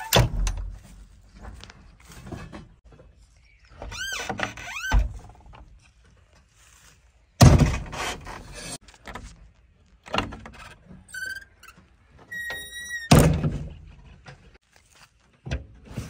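Cab door and glass windows of a JCB 3DX backhoe loader being opened and shut: three hard thunks, with squeaks from the frames and hinges in between.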